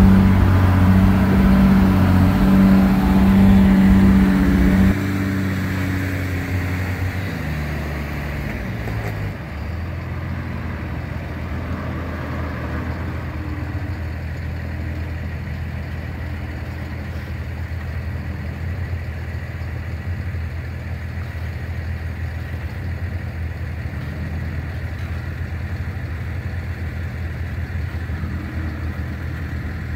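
Old Dodge truck engine running at low revs while crawling over rock. For the first five seconds the engine is louder, then it drops sharply and settles into a steady, quieter drone.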